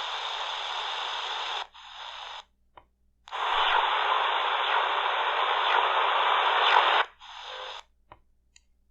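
Shortwave static hissing from a C.Crane Skywave portable radio's speaker during a band scan. It comes in several stretches of differing strength, broken by short silences as the radio moves between frequencies, and goes quiet near the end.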